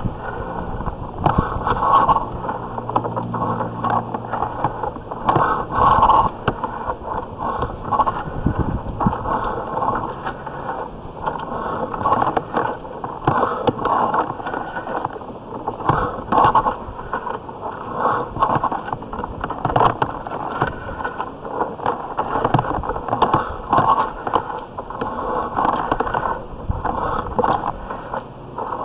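Sewer inspection camera head and push cable scraping and knocking unevenly as the camera is pushed along the inside of a cast-iron drain pipe, the rough corroded pipe wall dragging on the line.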